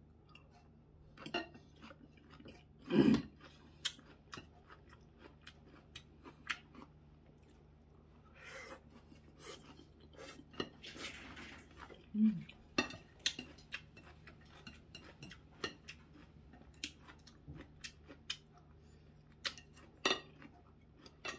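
Close-up eating sounds: chewing and mouth clicks, with wooden chopsticks and a wooden spoon tapping and scraping a ceramic plate. A slurp comes about eleven seconds in, and a louder knock about three seconds in.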